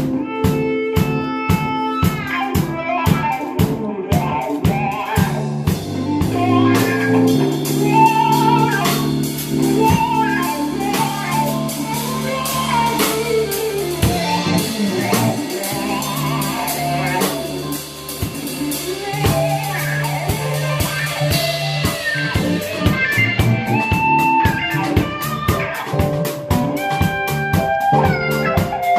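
A band playing a funk jam: guitar over a steady drum-kit beat, with bass and melodic lines.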